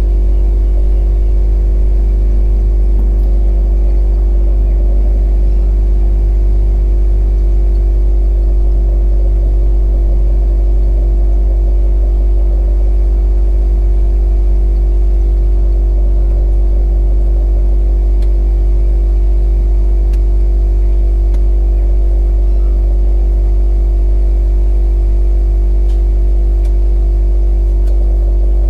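A drone's motors and propellers running steadily: a constant-pitched hum that holds at one level throughout.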